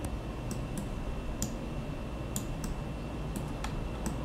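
Irregular sharp clicks of a computer keyboard and mouse, about ten in a few seconds, over a faint steady low hum.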